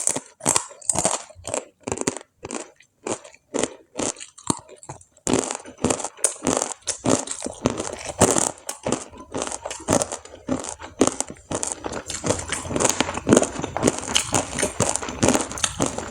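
Close-miked chewing of crisp fried food: separate crunches about twice a second at first, turning into denser, continuous crunching about five seconds in.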